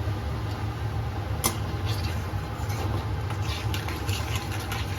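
Steady low rumble under faint sizzling of turmeric and chilli powder frying in hot mustard oil, with a sharp tap about one and a half seconds in.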